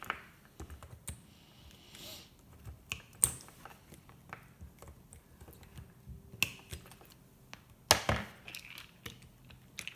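Tin snips cutting the metal connector tabs between the cells of a drill battery pack: scattered small clicks and snaps, with a sharp snip about three seconds in and another near eight seconds.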